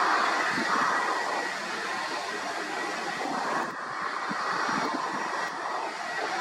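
Jet engine roar of an easyJet Airbus A320-family airliner on final approach, a steady rushing noise with a faint high whine, swelling and easing as gusts of wind buffet the microphone.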